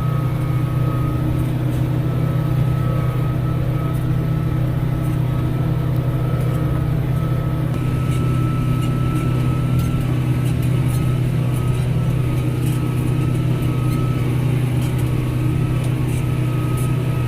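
Tractor engine running steadily under load, heard from inside the cab, with a thin steady high whine over its low hum.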